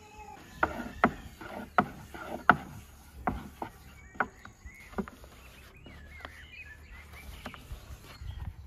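Long thin wooden rolling pin clacking and knocking against a large round wooden board as dough is rolled out thin. The sharp wooden knocks come irregularly, roughly one to two a second, and thin out in the middle before picking up again near the end.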